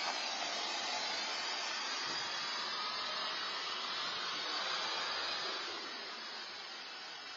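Steady rushing hiss, easing off a little about six seconds in.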